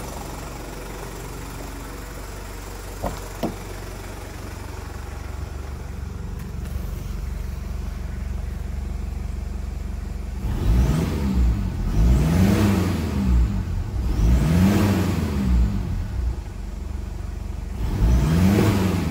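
Toyota 1KZ-TE 3.0-litre turbo-diesel four-cylinder idling steadily, then revved three times from about halfway through, each rev rising and falling back. Two light clicks sound a few seconds in.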